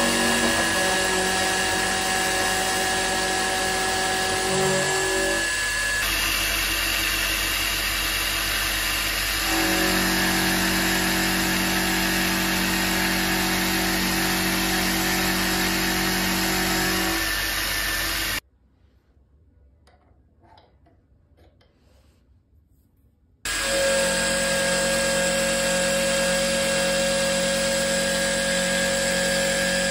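Milling machine running, its end mill cutting a metal block with a steady whine. The sound drops to near silence for about five seconds past the middle, then comes back.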